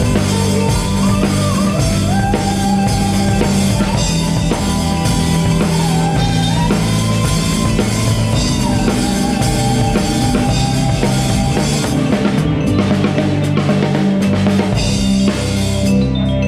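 Band music with a full drum kit, bass and a melody line playing at a steady loud level. Near the end the drums drop out, leaving a bell-like mallet or keyboard part.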